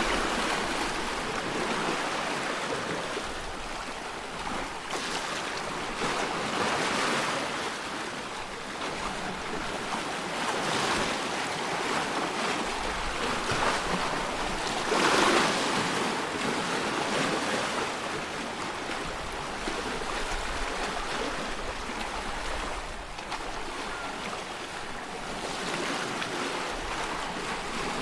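Sea waves breaking and washing over a rocky shore. Each wave comes as a rushing surge every few seconds, and the loudest arrives about halfway through.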